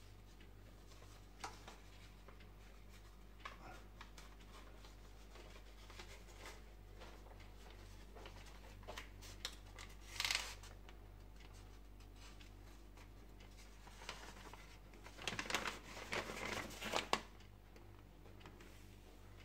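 Paper coffee filter rustling and crinkling as it is handled and folded along its seams, with a few light taps, over a faint steady low hum. There is a short rustle about halfway, and the loudest crinkling comes in a busy stretch a few seconds before the end.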